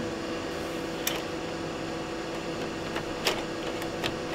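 Steady mechanical hum of a powered-up HP 1650A logic analyzer, its cooling fan and electronics running, with a few sharp clicks from the floppy drive and its ribbon cable being handled: one about a second in, one about three seconds in, and one near the end.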